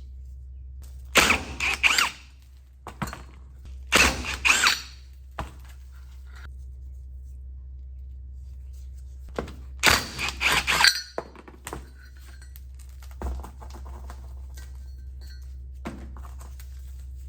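Metal starter parts knocking and clinking on a work bench in three short clusters, with a few single knocks between, over a steady low hum.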